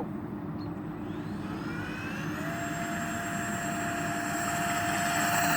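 Electric ducted fans of a radio-controlled Airbus A320 model airliner spooling up for takeoff. A whine rises in pitch about a second in, then holds a steady high note and grows louder through the takeoff run.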